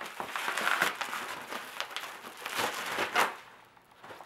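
Bubble wrap and plastic packaging crinkling and rustling as it is handled and pulled off a box, dying away about three and a half seconds in.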